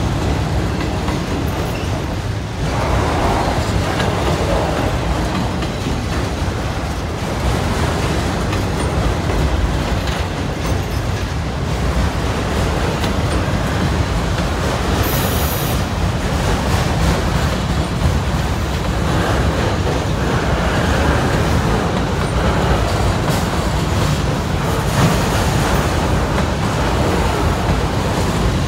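Loaded autorack freight cars of a long CSX train rolling past, a steady rumble of wheels on rail with clickety-clack at the joints. A brief high squeal comes about halfway through.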